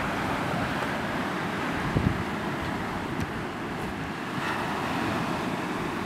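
Sea surf washing on a pebble beach, with wind buffeting the microphone. A couple of brief knocks come about two seconds in.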